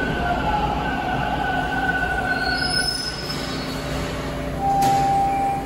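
TTC T1 subway train rolling into the station and braking to a stop: a steady rumble with held wheel and brake squeals and a few short high squeals. Near the end there is a sharp click, then a short steady squeal as it stops.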